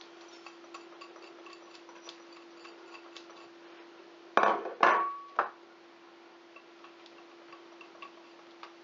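Small glass bowls and a whisk knocking against a stainless steel saucepan as ingredients are scraped in. There are three sharp clinks a little past the middle, the second ringing briefly, over a faint steady hum and faint regular ticking.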